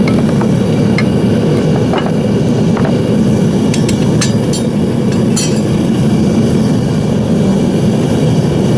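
Devil Forge melting furnace running steadily, its burner and blower making a constant low rushing noise, with a few light metallic clinks.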